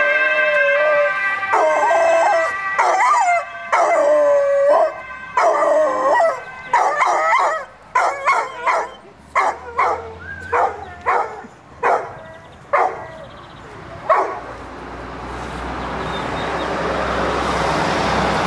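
Dog howling: a run of long, wavering howls that grow shorter and choppier toward a string of brief yelps, breaking off about 14 seconds in. A steady rushing noise then swells up near the end.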